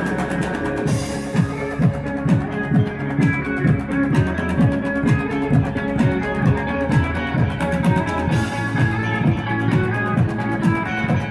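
Background music: plucked guitar over a steady drum beat.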